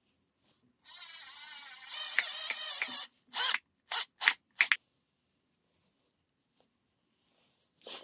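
Cordless drill-driver driving a screw into a wooden strip: its motor whines steadily for about a second, then runs louder with a wavering pitch under load, followed by four short bursts.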